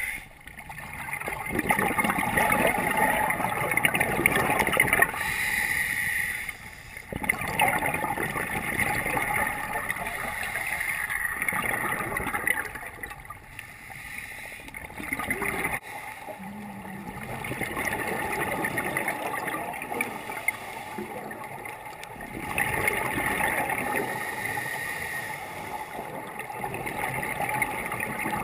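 Underwater sound heard through a waterproof camera housing: gurgling rush of scuba regulator exhaust bubbles, swelling and fading every few seconds with the divers' breathing.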